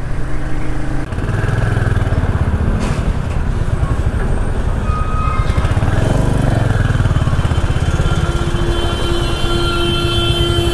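Royal Enfield Hunter 350's single-cylinder engine running as the bike is ridden, a steady low pulsing exhaust note. A vehicle horn sounds in one long steady tone for the last few seconds.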